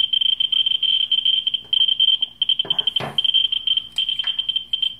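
Ludlum Model 3 survey meter's audio clicking at a very high count rate, the clicks crowding into a high-pitched, flickering buzz, as its Model 44-9 pancake probe picks up radiation from torbernite/kasolite uranium ore. The rate is far off the scale on the meter's lowest range. A brief knock about three seconds in.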